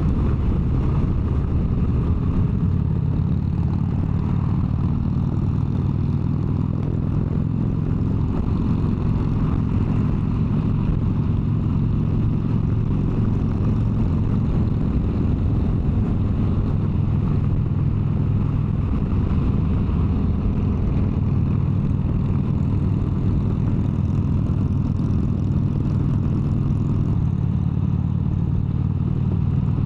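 Harley-Davidson V-twin motorcycle engine running steadily at highway cruising speed. Its low engine note shifts slightly a few times in the second half.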